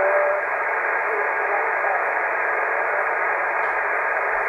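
Yaesu FT-450D HF transceiver's speaker playing steady band hiss on the 20-metre band, the narrow, thin-sounding static of a receiver tuned to single sideband, with a brief faint whistle right at the start.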